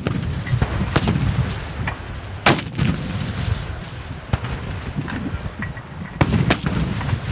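Towed 120 mm mortars of two platoons firing in an irregular volley. Sharp reports come every second or so, the loudest about two and a half seconds in, over a continuous low rumble of more distant mortar fire.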